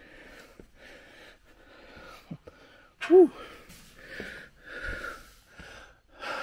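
A man breathing hard and fast from the exertion of climbing steep tower stairs: a quick run of puffs in and out, with a short voiced gasp about three seconds in as the loudest moment.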